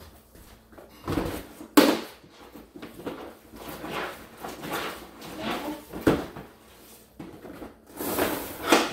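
A string mop plunged up and down in a plastic mop bucket of soapy water, repeated wet swishes and plastic clunks, with a sharp clunk about two seconds in and a louder stroke near the end.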